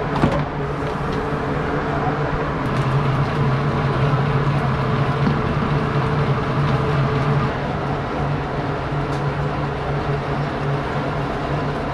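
Steady low drone with an even rumble underneath, the running noise of a vehicle.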